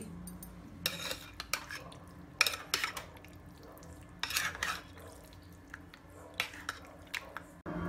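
A spoon stirring chicken pieces through a thick yogurt-and-cream marinade in a plastic bowl, with irregular wet scrapes and clicks of the spoon against the bowl.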